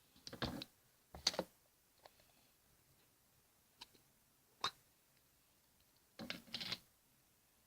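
Short clicks and clatters of small hard objects being handled, in a handful of brief clusters.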